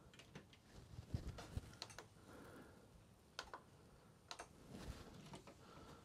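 Faint, irregular clicks of a wireless push-button light switch being pressed to turn the lights on and off, a few single clicks and small clusters spread over several seconds.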